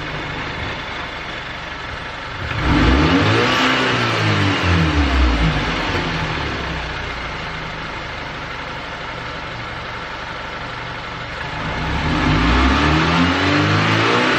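Audi A4 B8.5 engine idling and blipped twice, the revs rising about two and a half seconds in and falling back, then rising again near the end. It is being revved to see whether the engine lifts on its newly fitted motor mounts.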